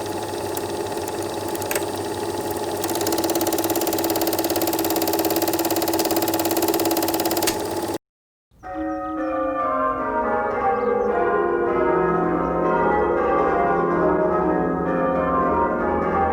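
A film projector running with a steady, fast mechanical clatter for about eight seconds and stopping abruptly. After a half-second of silence, church bells ring in repeating falling sequences, as in change ringing.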